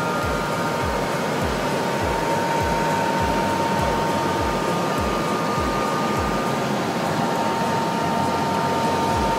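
Eurocopter EC130 helicopter's turbine engine and rotor heard from inside the cabin: a steady rushing noise with a high whine held throughout and a low pulsing about twice a second.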